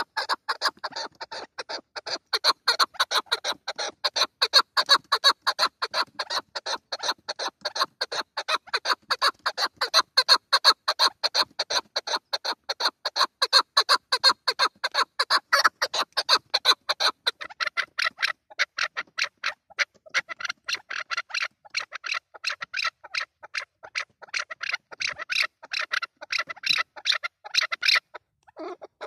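Chukar partridge calling a rapid, steady series of short chuck notes, about four a second, that breaks off briefly near the end.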